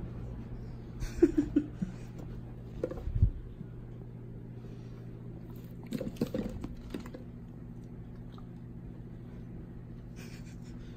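Kittens scrambling on a carpeted cat tree: a few clusters of short scuffles and knocks, about a second in, around three seconds and around six seconds, over a steady low hum.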